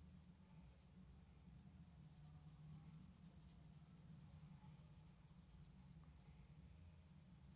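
Near silence: room tone with a steady low hum and faint, quick scratching sounds.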